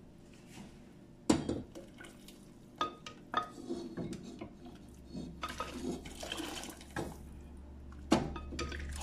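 Ladle knocking and scraping against a blender jar while thick tomato purée is poured into a pot of broth, with a handful of sharp knocks and a soft pouring, splashing sound in between.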